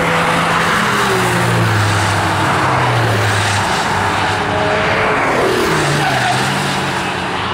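Several cars passing at speed one after another, engines running at high revs, with the pitch dropping as each one goes by and the sounds overlapping.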